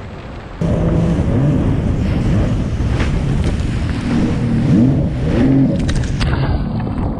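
Jet ski engine running hard at speed, its pitch rising and falling several times, with water rushing and splashing around it. The sound cuts in suddenly about half a second in.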